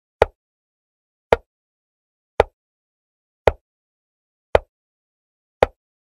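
Chess replay software's move sound effect: a short click for each move played, six evenly spaced about once a second, with silence between.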